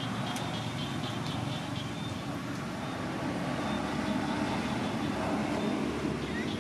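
Steady low rumble of distant motor traffic, swelling a little past the middle, with a faint rapid high ticking in the first couple of seconds.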